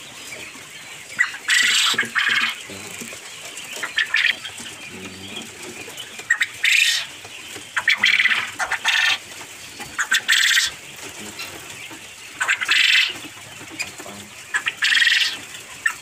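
Caged quail calling and fluttering in short, noisy, high-pitched bursts that come again every second or two.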